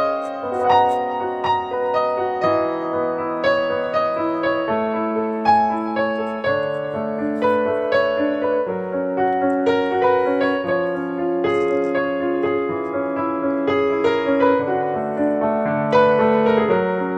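Background piano music: a melody over held notes and chords, each note starting cleanly and sustaining.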